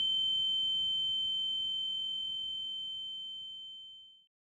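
A single high-pitched ringing tone, held steady and slowly fading, with a faint low rumble underneath; it cuts off about four seconds in.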